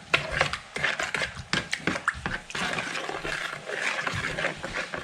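A buttermilk marinade being stirred in a bowl: a utensil clicking and knocking against the bowl in quick strokes for the first half, then a softer swishing.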